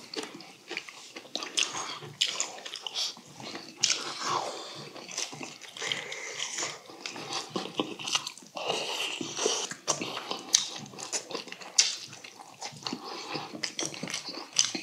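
Close-up eating sounds: chewing and mouth noises from two people eating braised yellow croaker and rice, with scattered light clicks of chopsticks and metal spoons against stainless steel bowls.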